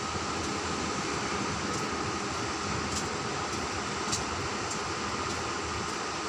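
Sea surf washing on a beach, a continuous steady rush of waves, with a faint steady high tone underneath.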